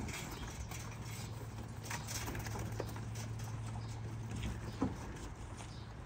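Pigeons shuffling and tapping about in a wire-mesh landing cage, with scattered faint light clicks. A low steady hum runs under them from about a second in until about five seconds.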